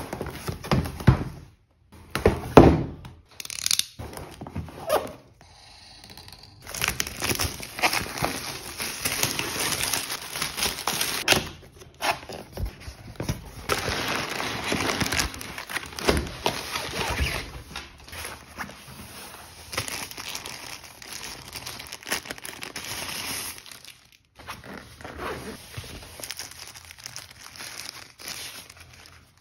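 Plastic packaging and inflated air-column wrap crinkling and rustling as they are handled and pulled off by hand, with a few sharp knocks in the first few seconds.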